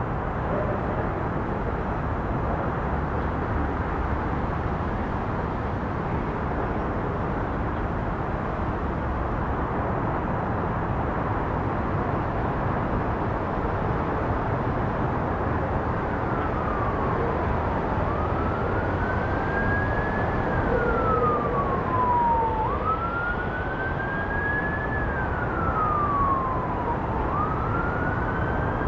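Emergency vehicle siren wailing, its pitch rising and falling slowly in repeated cycles, starting a little past halfway through, over a steady low rumble.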